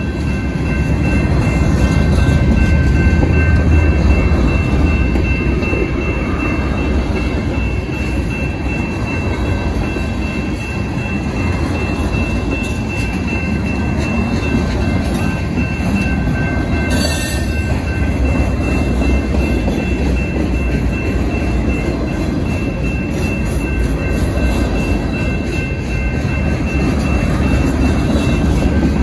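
Freight cars rolling steadily past at a grade crossing: a continuous rumble of steel wheels on rail, with the crossing's warning bell ringing as steady high tones throughout. A brief high-pitched screech about seventeen seconds in.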